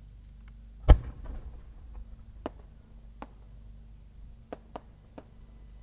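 A large 10-go (shakudama) firework shell fired from its mortar with one loud, echoing boom about a second in. Then come scattered sharp pops of the small kyokudō attachments bursting as the shell climbs.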